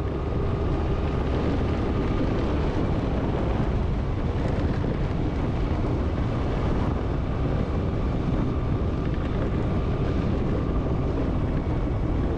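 A vehicle running steadily on the move, with wind noise on the microphone.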